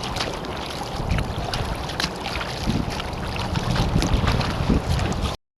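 Wind buffeting the action camera's microphone over choppy water, with repeated splashes and slaps of water against the kayak and paddle. The sound cuts off suddenly near the end.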